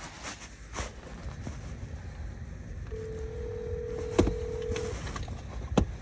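Telephone ringback tone through a phone's speaker: one steady two-second tone in the middle as the call rings at the other end, with a couple of sharp knocks late on over a low background rumble.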